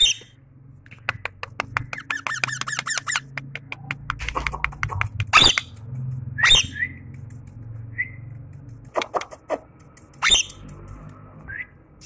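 Indian ringneck parakeet calling: a fast clicking chatter for about two seconds, then sharp screeches, four in all, with a few short clicks between them.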